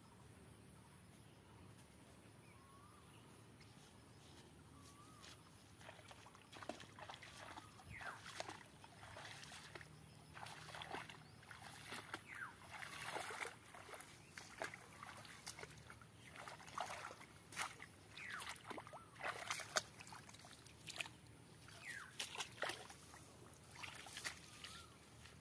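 Bare feet walking through wet grass and mud: irregular swishing, wet steps that start faintly and grow louder from about six seconds in as the walker comes close.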